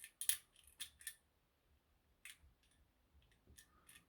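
Lever lock being picked: scattered small, sharp metallic clicks of the pick and tension tool working the levers inside the lock, irregular and spread over a few seconds.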